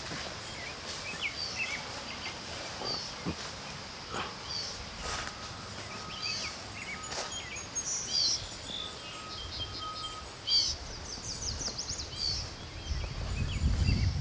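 Songbirds chirping and calling, with a quick trill a little past the middle and a thin held whistle heard twice. A few sharp clicks in the first half, and a low rumble builds near the end.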